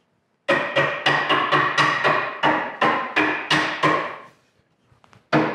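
Wooden mallet knocking down the glued top of a wooden assembly, driving it onto its Domino tenons. The knocks come quickly, about four a second, with a ringing wooden tone. They stop a little past four seconds in and start again near the end.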